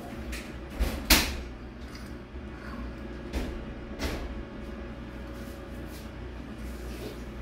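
A table knife clinking and scraping against a ceramic plate while filling is spread on a cake layer, with a few sharp knocks, the loudest about a second in.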